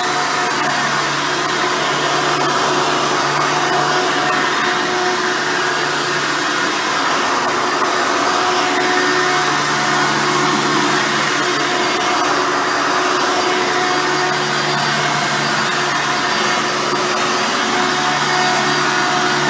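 Hoover Soft & Light Supreme vacuum cleaner with its 7-amp motor, running steadily while vacuuming. It makes a constant rushing whine, and a lower hum swells and fades every few seconds.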